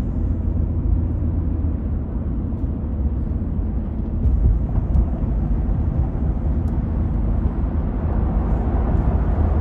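Steady low rumble of a vehicle driving, with engine and road noise.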